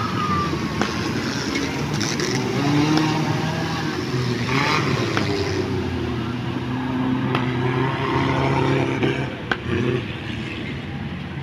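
Off-road jeep engines running and revving, pitch rising and falling, as the jeeps drive through a shallow river with water splashing.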